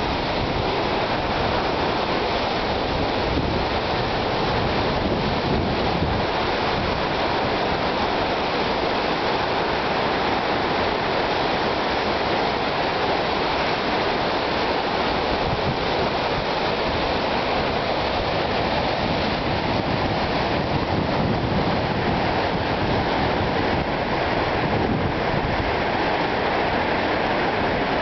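River in flood rushing over a waterfall and ford: a steady, unbroken noise of fast water.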